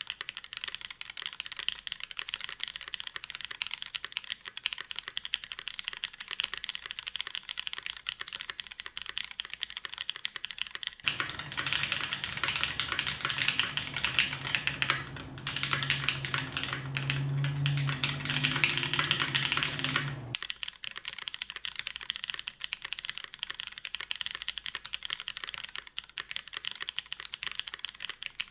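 Continuous typing on a custom mechanical keyboard: NRD Kaze case with an aluminium plate, BCP switches lubed with 205g0, and GMK keycaps, giving a steady stream of keystroke clicks. About a third of the way in the typing becomes louder and denser for roughly ten seconds, then returns to the earlier lighter pace.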